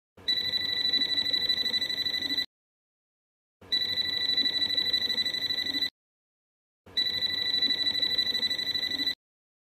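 Habotest HT122 pen-type multimeter's buzzer sounding three long, high-pitched beeps, each about two seconds long and about a second apart. This is its warning that the probe has found live mains voltage in the socket.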